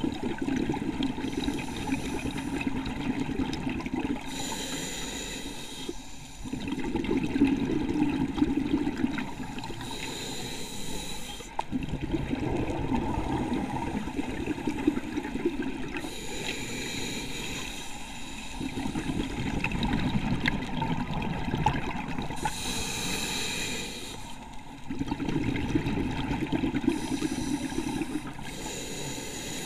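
Scuba regulator breathing underwater: a short hissing inhale, then a longer bubbling exhale, repeating about every six seconds.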